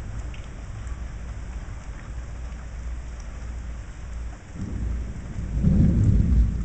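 Steady rain falling in a severe thunderstorm, with a deep rumble of thunder building about four and a half seconds in and loudest near the end.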